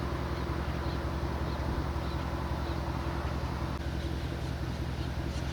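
Large engine idling steadily with a low, even hum, and a faint high chirp repeating about every two-thirds of a second over it.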